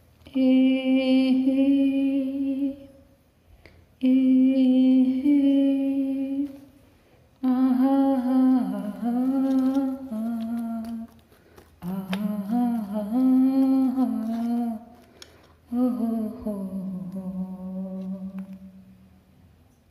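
A voice humming a slow, wordless melody in five long phrases with short pauses between them.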